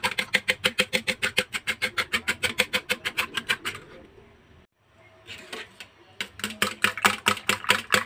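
A fork beating egg and fish mixture in a glass bowl, clicking rapidly against the bowl at about eight strokes a second. It stops briefly about halfway through, then starts again.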